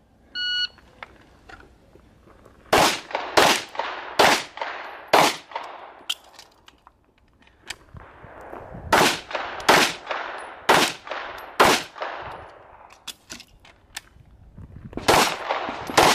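A shot timer's electronic start beep sounds briefly, then a pistol fires in bursts with pauses between them: about four shots a few seconds in, another group of four or five around the middle, and two more near the end, each a sharp crack with a trailing echo.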